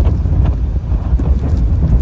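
Hurricane wind buffeting the microphone in strong gusts, a heavy, uneven rumble with driving rain hissing underneath.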